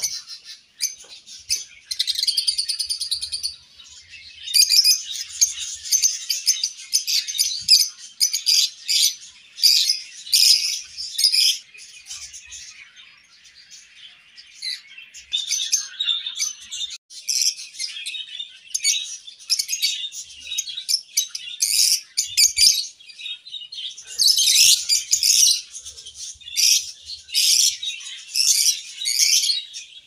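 A flock of lovebirds chirping: dense, high-pitched chattering of short shrill calls in rapid bursts, with a quieter lull about halfway through.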